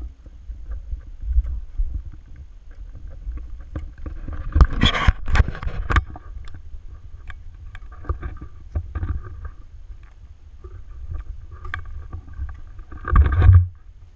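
Movement noise from a body-worn action camera as its wearer hikes through tall grass: a steady low rumble of rubbing and footsteps, with clicks and brushing against vegetation. Louder scuffing bursts come about five seconds in and again near the end.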